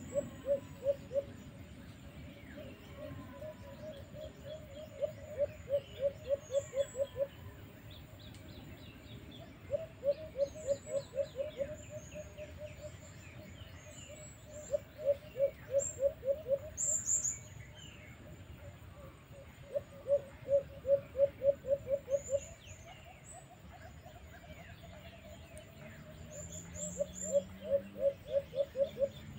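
A dove calling: runs of rapid low hooting coos, about five a second for two seconds at a time, repeated every four to five seconds. This is the call of the alimukon, the white-eared brown dove. Faint high chirps of small birds sound between the runs.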